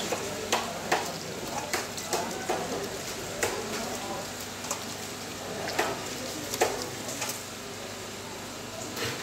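Water from a hose splashing over a freshly scaled fish on a wooden chopping block as a hand rubs it clean, washing off the loose scales. There is a steady hiss of running water with irregular wet slaps and knocks.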